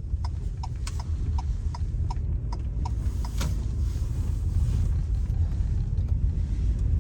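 Steady low rumble of a vehicle driving, heard inside the cabin, with a light regular ticking about three times a second that fades out a little past the middle.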